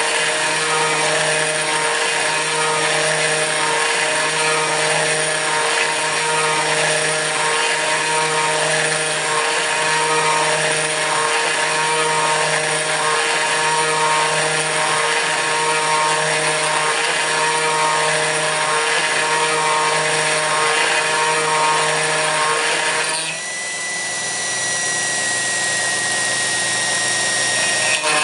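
Kress FME-1050 router spindle on a CNC machine milling aluminium: a steady high-pitched machine sound with a beat repeating a little more than once a second. About 23 s in, the sound drops and thins to a high whine that falls slightly, then the fuller cutting sound returns near the end.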